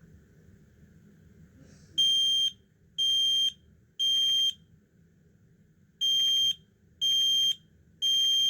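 A 10-year smoke alarm sounding on test. It gives three high, steady beeps of about half a second each, a pause, and then three more: the temporal-three evacuation pattern.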